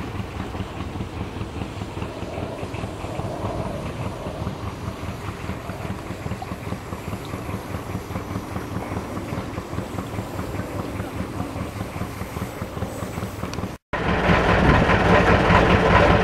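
Motor launch's engine running steadily underway, heard on board, with a fast even pulse. Near the end the sound drops out for a split second and comes back louder.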